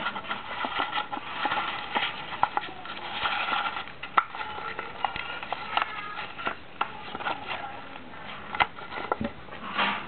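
A sheet of origami paper rustling and crinkling as fingers fold and crease it, with irregular sharp crackles.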